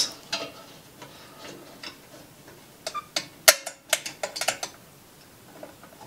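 Light, irregular clicks and taps of a thin metal strip working against the electronic safe's door and pressing its code-reset button, with a cluster of clicks about halfway through.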